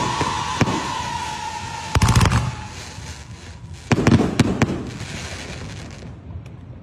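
Fireworks: a fountain hissing under a steady whistle that fades out about two and a half seconds in. Aerial shells go off in clusters of bangs and crackles about two and four seconds in, and the hiss dies away near the end.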